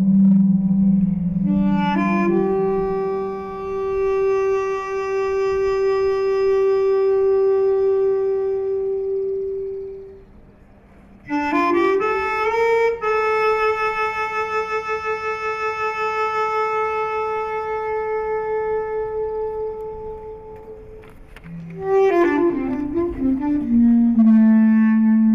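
Electronically augmented bass clarinet (SABRE) playing an improvised line of long, sustained notes. Each note is reached by a quick rising run, there is a short break about ten seconds in, and a falling run brings the line back down low near the end.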